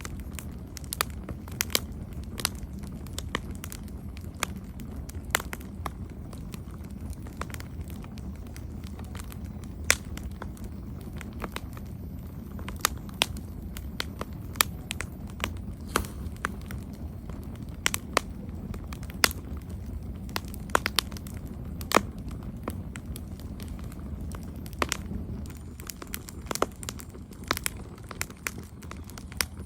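Campfire burning, wood crackling and popping in irregular sharp snaps over a steady low rumble of the flames.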